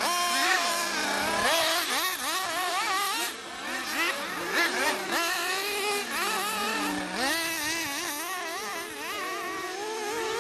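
Several 1/8-scale buggies' .21 two-stroke nitro (glow) engines racing together, overlapping, each one's pitch rising and falling over and over as it accelerates and backs off around the track.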